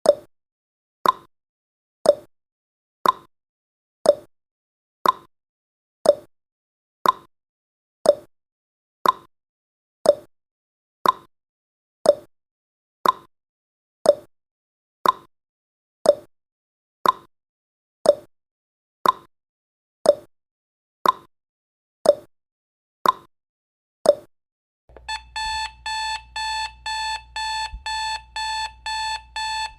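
Countdown timer sound effect: a clock ticking about once a second, then, as the countdown reaches zero, an electronic alarm clock starts beeping in rapid, even pulses.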